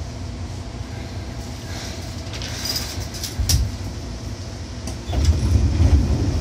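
Seibu 2000 series electric train running, heard from inside the car: a steady low rumble of wheels on the rails, with a few sharp clicks in the middle. The rumble swells louder about five seconds in.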